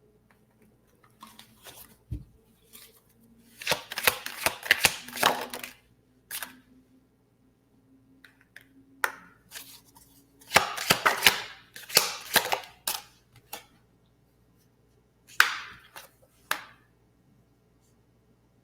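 Tarot cards being shuffled and handled, in three bursts of rapid clicking and riffling with a few single card taps between them.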